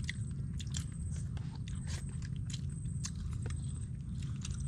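Close-up chewing and biting of food eaten by hand, with irregular small clicks and crunches, over a steady low rumble.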